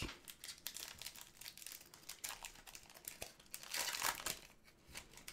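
Trading-card pack wrapper crinkling and tearing as it is opened by hand, with irregular crackles and a louder stretch about four seconds in.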